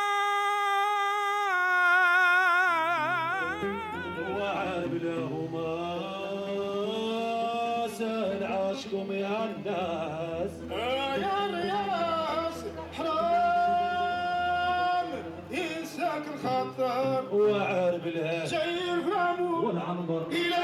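Sacred music: a voice sings long, ornamented melodic lines with vibrato over a low sustained drone that comes in a few seconds in.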